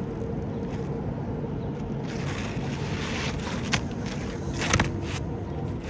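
An asphalt repair shingle scraping as it is slid in under the shingle course above, with two light knocks about four and five seconds in, over a steady low rumble.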